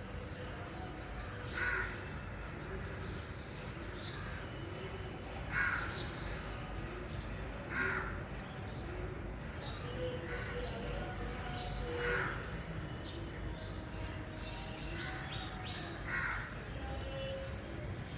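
Crow cawing: about five single harsh caws spaced a few seconds apart, over a steady low background rumble.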